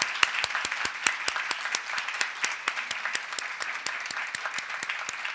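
Audience applauding: many people clapping together, steady and dense.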